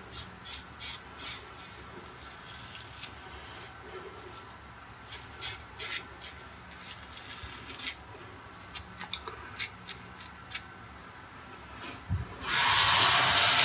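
Short, light scraping strokes of a 3D-printed Triceratops safety razor cutting stubble through shaving lather, one after another. Near the end a water tap starts running loudly into the sink.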